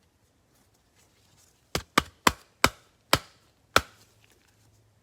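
Six sharp taps of a hard plastic top loader knocked against a tabletop to seat a trading card inside it, coming in quick succession about two seconds in.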